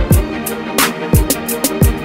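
Electronic hip hop beat built in Music Maker JAM: deep kick drums that glide down in pitch, with quick hi-hat ticks over a held synth chord.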